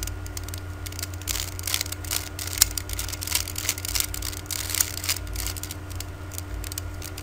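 Rubik's cube faces being turned by hand: irregular quick plastic clicks and scrapes, over a steady low electrical hum.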